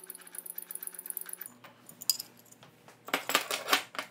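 Wrench work on the left-hand nut of a mill's spindle pulley. A quick run of light metallic clicks comes first, then a pause, then about three seconds in a loud cluster of metal clinks.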